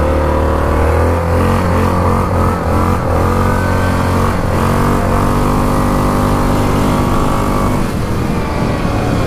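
A Yamaha Grizzly 660 ATV's single-cylinder four-stroke engine runs under throttle while riding. Its pitch rises and falls as the throttle is worked, with a brief drop in revs about halfway through.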